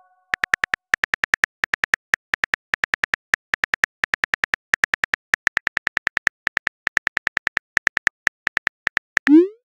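Phone keyboard key-click sounds, one per letter, as a text message is tapped out at a quick, uneven pace of about five or six clicks a second. Near the end comes a short rising whoosh as the message is sent.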